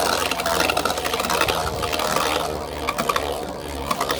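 Spinning Beyblade tops, one of them 3D-printed, scraping and clacking against each other and the plastic stadium in a battle: a dense rattling scrape that eases off after about two and a half seconds into scattered clicks.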